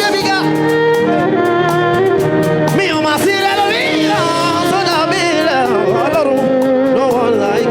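Live gospel worship music: voices singing gliding runs over band accompaniment of sustained chords and a steady drum beat.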